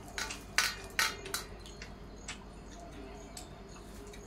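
Hands mixing rice on stainless steel plates while eating, with sharp clicks and clinks of fingers against the metal, bunched in the first second and a half and then a couple of lighter ones.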